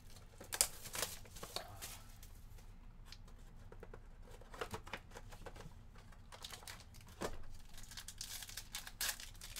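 Hands opening a cardboard trading-card box and then crinkling and tearing open a foil card pack: irregular sharp crackles and rustles, busiest in the first couple of seconds and again from about seven seconds in.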